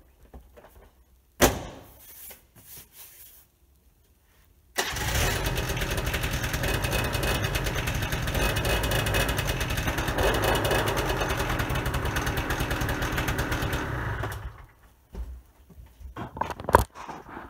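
A single sharp knock about a second and a half in as the seat is pressed down onto the quad. Then the Suzuki LT80's small two-stroke single-cylinder engine catches all at once about five seconds in, runs steadily for about ten seconds, and stops.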